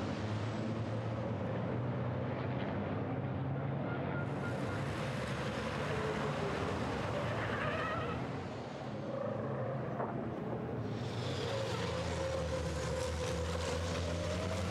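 Several race trucks' turbo-diesel engines running at speed around a circuit, the engine note rising and falling. There is a short high whine about halfway through.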